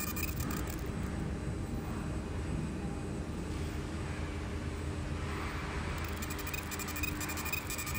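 20 W fiber laser marking machine with a steady low hum. Its high-pitched crackle of engraving on bismuth telluride stops about a second in and starts again about six seconds in, as the laser pauses between marking passes.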